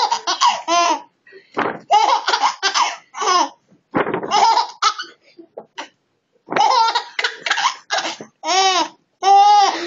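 A three-month-old baby laughing hard: about six high-pitched bursts of belly laughter, each a quick run of repeated laughs, with short breaks between them.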